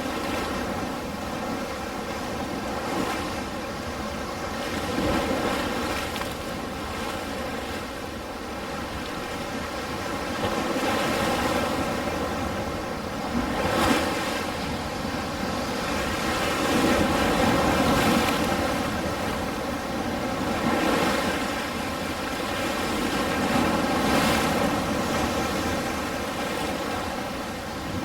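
Ocean surf washing continuously, swelling and easing every few seconds as waves break, with the louder surges about halfway through and again near the end. A faint steady hum runs underneath.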